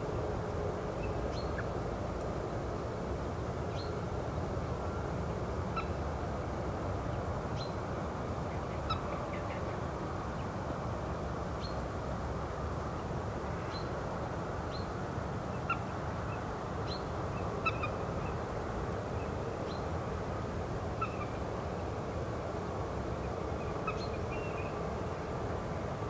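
River ambience: a steady rush of water with a faint low hum beneath it, and short, high bird chirps and calls scattered throughout, a few of them louder a little past the middle.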